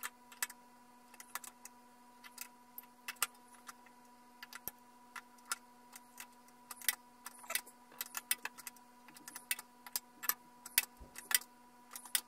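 Die stock being turned by hand to cut an M6 thread on a metal rod in a bench lathe: irregular sharp metallic clicks and ticks as the die bites and the handle is worked in short strokes. A steady faint hum runs underneath.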